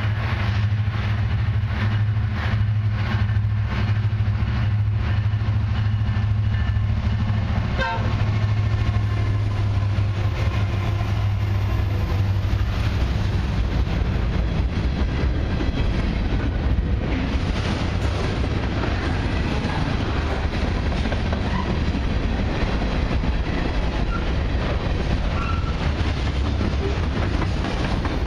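Two CN SD70M-2 diesel-electric locomotives pass with a steady low engine drone, which fades after about ten seconds. The train's freight cars then roll by with continuous wheel-on-rail noise.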